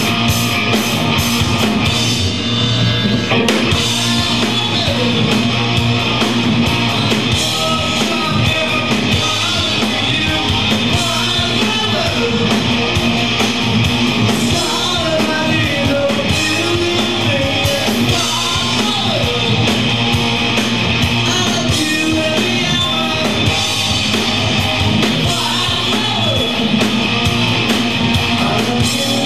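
Live rock band playing loud: electric guitars, bass and a drum kit, with a singer's voice over them.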